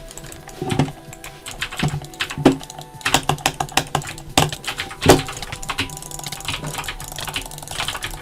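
Quick, irregular clicking and tapping, with a few heavier knocks among the lighter clicks, thinning out in the second half. A faint steady hum sits underneath.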